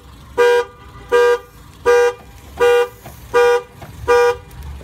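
Car horn honking in a steady rhythm, six short blasts about three-quarters of a second apart: the car alarm going off after the locked car's door was opened without the key fob.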